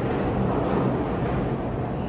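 A New York City subway train rumbling away along the track as it leaves the station; the steady rumble fades slowly.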